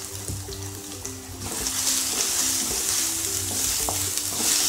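Chopped onions sizzling in hot oil in a nonstick kadhai, stirred with a wooden spatula; the sizzle jumps louder about a second and a half in. Soft background music plays under it.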